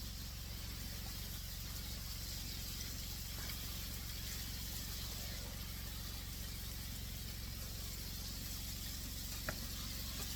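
Battered venison backstrap frying in hot oil: a steady sizzle over a constant low hum, with one sharp tick near the end.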